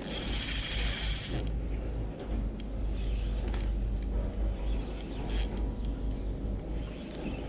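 Shimano Stradic spinning reel being cranked, its gears running steadily as the lure is retrieved, over a low steady rumble. There is a bright hiss in the first second or so.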